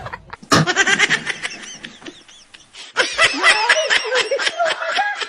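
People laughing in two bouts of rapid, choppy, high-pitched laughter, the first starting about half a second in and the second about three seconds in.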